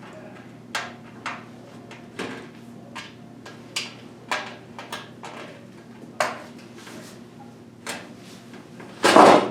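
Fractal Design Focus G PC case panel being handled and taken off: scattered clicks and knocks of metal, with a louder clatter about nine seconds in.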